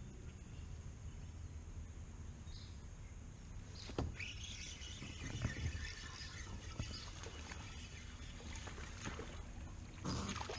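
Rod and reel at work as a fish is hooked and reeled in: a sharp knock about four seconds in, then several seconds of fast, light clicking from the reel and handling, with another short clatter near the end, over a low steady rumble.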